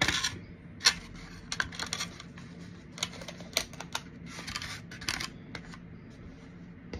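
Little spoons clinking and clattering as they are rummaged through: irregular sharp clicks with brief scraping, the loudest click about a second in.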